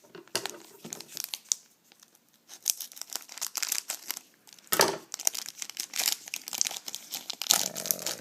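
Foil trading-card pack wrapper crinkling and cards being handled, in quick crackly rustles with a short lull about two seconds in and a sharper rustle midway.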